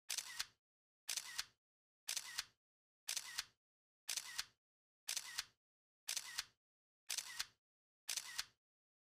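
Camera shutter sound effect repeating about once a second, nine times. Each one is a quick double click, with dead silence between.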